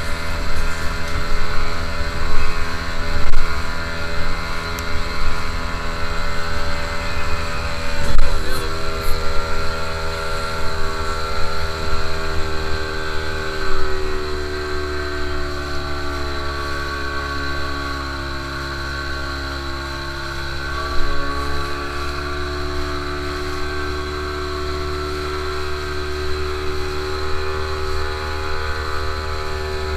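Motorboat engine running steadily, its pitch slowly dipping and rising as the boat's speed changes, with loud low thumps in the first eight seconds.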